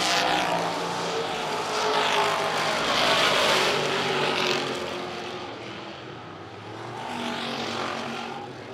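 Dirt-track vintage stock cars racing past at full throttle, their engine pitch rising and falling as each car goes by. The engines are loudest in the first half, die down a few seconds later, and swell again near the end as another car passes.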